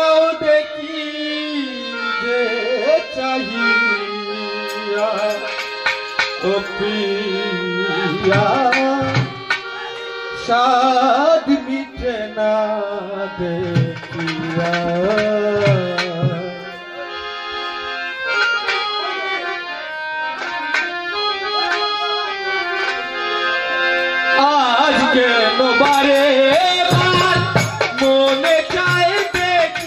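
A man singing a Bengali folk song, accompanied by harmonium and tabla, with steady drum strokes throughout.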